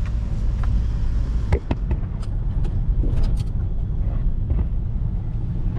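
Car being driven, heard from inside the cabin: a steady low rumble of engine and road, with a few light clicks and knocks.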